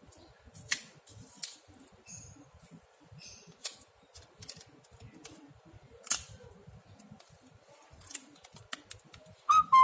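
Scattered sharp clicks and taps of small plastic and metal phone parts being handled during disassembly or reassembly. Near the end comes a short, loud two-note beep.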